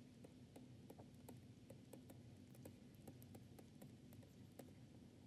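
Near silence: faint, irregular light clicks of a stylus tapping and moving on a writing tablet as words are handwritten, over a low steady hum.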